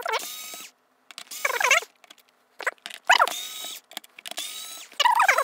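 Small cordless electric screwdriver whirring in short runs, about five bursts of roughly a second each, backing screws out of a Nerf blaster's plastic shell. Each run carries high, wavering squeaks as the screws turn in the plastic.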